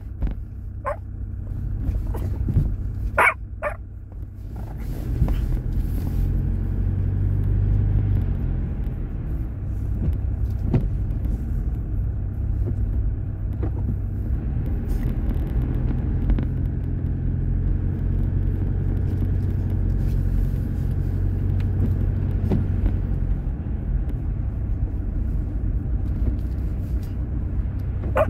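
Steady low rumble of a car driving, engine and road noise heard from inside the cabin. A few short, sharp high-pitched sounds come in the first four seconds.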